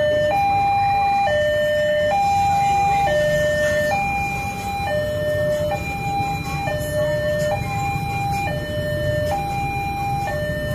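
Railway level-crossing warning alarm sounding: an electronic two-tone signal that alternates steadily between a higher and a lower tone, each held just under a second. Low rumble of motorbike traffic runs underneath.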